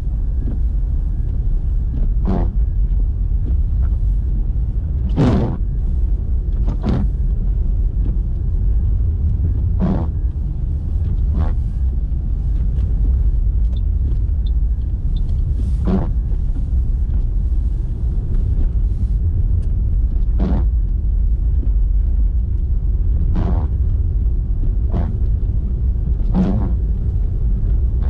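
Steady low rumble of a car driving, with short swishes at irregular intervals.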